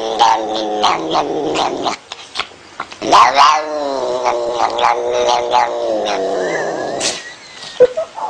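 Domestic cat yowling in long, drawn-out, wavering calls. One call ends about two seconds in, and a second long call runs from about three to seven seconds, followed by a short one near the end.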